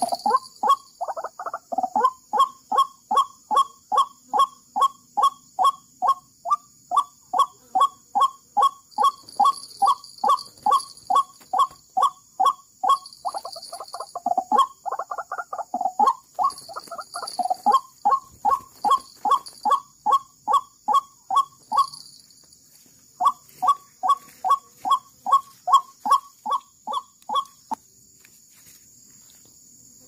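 White-breasted waterhen calling: a long run of short, repeated call notes, about two a second, rougher and jumbled at the start and again about halfway, pausing briefly after about 22 seconds, then starting again and stopping a couple of seconds before the end. Insects drone steadily in the background.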